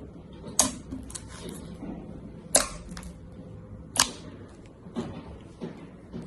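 Slime being pressed and played with by hand, giving sharp, irregular pops and clicks as air pockets burst, about eight of them, three much louder than the rest.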